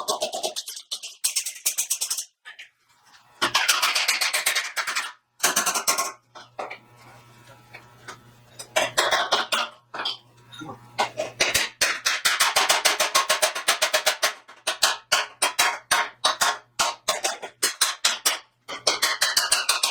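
Steel truck bumper being hammered back out of a dent: runs of rapid ringing metal blows, several a second, with short pauses between the runs.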